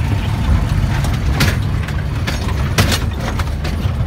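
Truck engine running with a steady low rumble, heard from inside the cab while driving slowly, with two short sharp noises about a second and a half and three seconds in.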